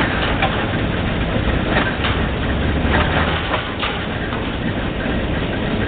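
Failing 1250 drilling rig running steadily with a heavy engine note, with a few short knocks about two to four seconds in.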